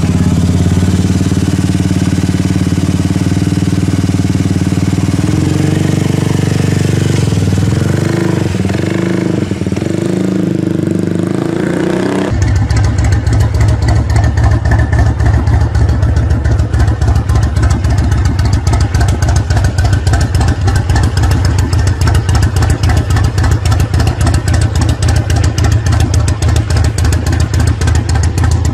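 Custom big scooter's engine running, steady with a slight waver in pitch. About twelve seconds in the sound switches abruptly to a homemade motorcycle's engine idling, louder, with a rapid, even beat.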